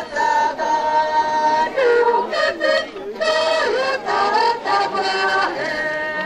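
A song with a group of singing voices, holding long notes about a second in and again near the end.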